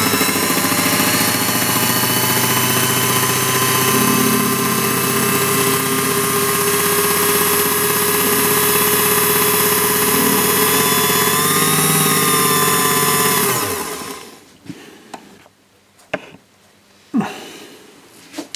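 Small belt-driven watchmaker's lathe running at steady speed with a whine, turning a brass clock wheel's arbor while the stub of a broken pivot is cleaned off its shoulder. About three-quarters of the way through the motor is switched off and winds down quickly, followed by a few light clicks.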